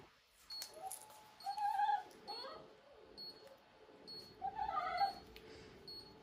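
High-pitched cries of a pet animal, four in about five seconds, two of them drawn out.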